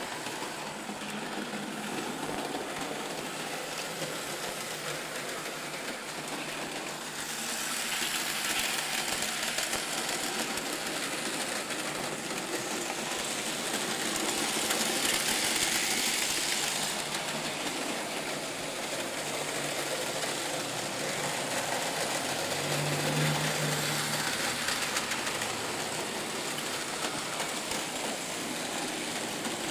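Märklin model trains running on the layout: a steady whirring and rattling of small electric locomotive motors and wheels on track, louder for stretches as trains pass close by. A short low hum sounds about three quarters of the way through.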